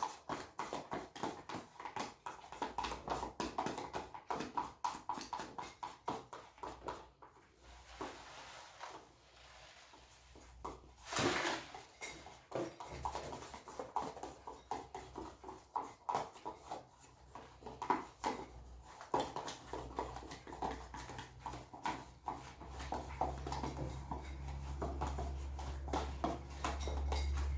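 Homemade slime being mixed and kneaded with activator: a quick run of small sticky, wet clicks, with one louder rustle about eleven seconds in.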